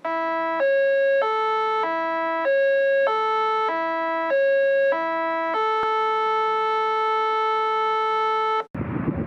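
Electronic intro jingle: a tune of steady notes, each about half a second long, then one held chord that cuts off abruptly near the end. Right after the cut, a steady outdoor rush like wind on the microphone comes in.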